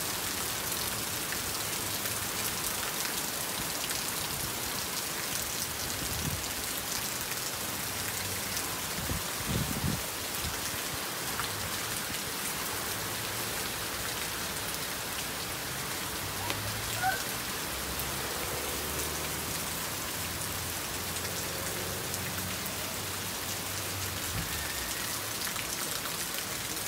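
Heavy rain pouring steadily onto an asphalt parking lot, an even hiss of splashing drops, with a couple of brief low bumps along the way.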